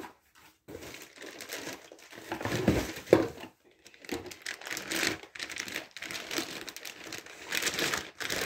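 Packaging crinkling and rustling as a heavy boxed furniture piece is pulled out and unwrapped, with a couple of dull knocks about three seconds in.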